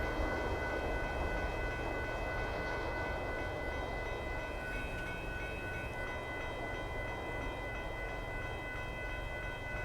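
Union Pacific autorack freight train rolling by: a steady low rumble of wheels on rail that slowly fades. Several steady high-pitched tones sound over it.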